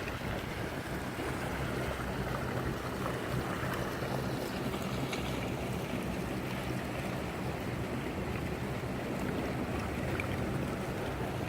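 Strong wind blowing, a steady rushing noise.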